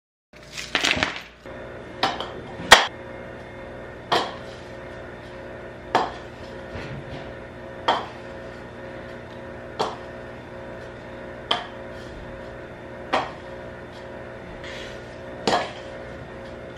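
Sharp knocks on a wooden plate, about one every two seconds, after a short clatter at the start, over a steady hum.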